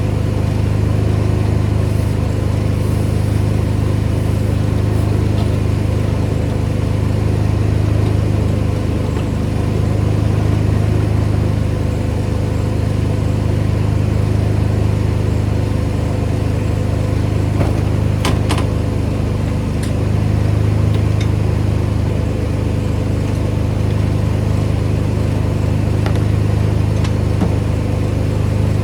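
Pressure washer engine running steadily, with a few brief clicks about eighteen seconds in.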